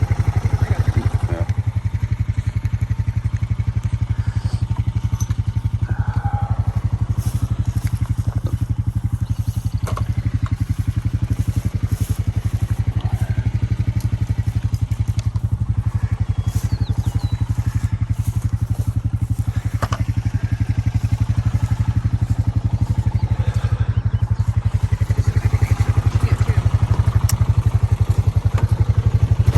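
An engine running steadily at a constant speed, with a fast, even pulse and a few light knocks and rattles over it.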